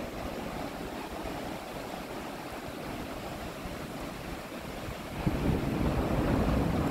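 Small waves breaking gently and washing up the sand, a steady hiss of water that grows louder about five seconds in as a bigger wave comes in.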